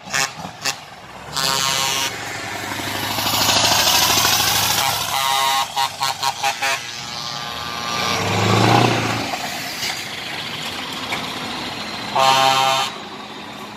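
Heavy trucks in a slow convoy driving past close by, their diesel engines running, with short air-horn blasts: one near the start, a longer one about a second and a half in, a cluster of toots around the middle and another near the end. One truck's engine note drops in pitch as it passes.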